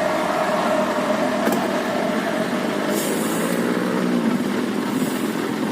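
Heavy vehicles' engines running in stopped traffic, a steady engine tone fading out early, with a few short hissing bursts.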